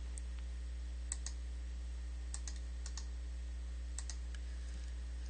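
Scattered sharp clicks of a computer mouse, some in quick pairs, over a steady low electrical hum.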